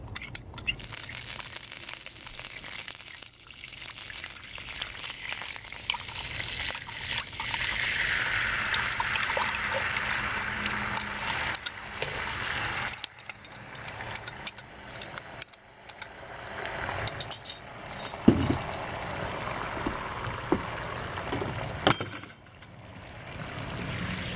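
A spoon clinking against a glass measuring cup as sauce is stirred, then the sauce poured into a hot wok, where it hisses and sizzles loudest at first and keeps sizzling as it is stirred with a spatula.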